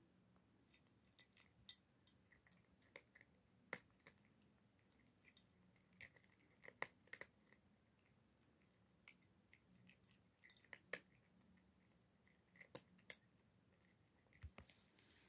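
A cat chewing dry kibble: faint, irregular crunches as the pellets break between its teeth.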